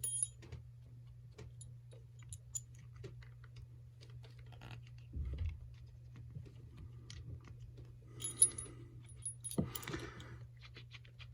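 Metal trick-bolt puzzle handled and twisted in the hands: scattered small clicks and clinks, with a couple of brief metallic rings near the start and again about eight seconds in, over a low steady hum.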